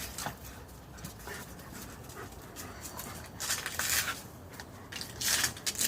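German Shepherd panting in quick, breathy bursts, loudest about three and a half seconds in and again near the end.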